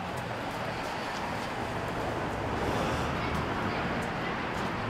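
Steady outdoor city background noise with a low traffic rumble.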